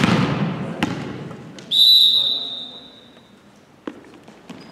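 Referee's whistle blown once, one high held note of about a second and a half, the signal that permits the serve. It is preceded by two sharp thuds that ring in the echoing gym.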